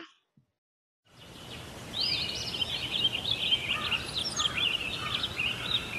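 Songbirds chirping over a steady hiss of outdoor background noise. It fades in after about a second of silence, and the many quick high chirps begin about two seconds in.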